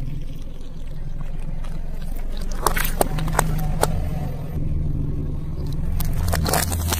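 Car engine running low while a tyre rolls over and crushes plastic yogurt cups and hard-candy lollipops in a floral-foam block. A run of sharp cracks comes a little under halfway through, and another shortly before the end.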